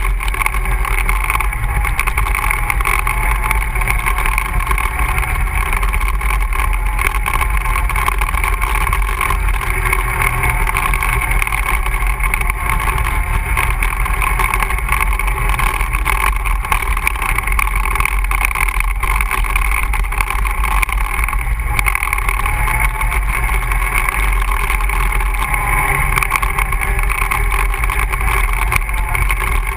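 ATV engine running steadily under way on a trail, a constant drone with no change in speed.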